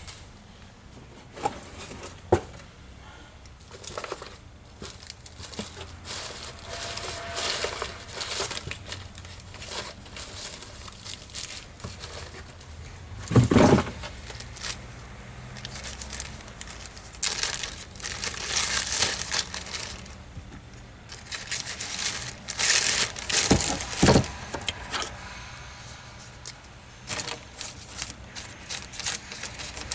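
Plastic bags crinkling and rustling in bouts as they are handled, with a few sharp knocks of parts being set down.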